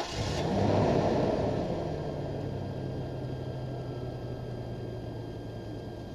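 An engine running steadily, with a loud rush of noise that peaks about a second in and then fades.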